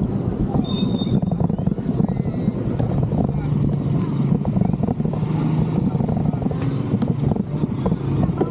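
Wind buffeting the action camera's microphone while riding a bicycle in traffic, under the low hum of motor vehicles, one of them droning steadily for a few seconds in the middle. A brief high-pitched tone sounds about a second in.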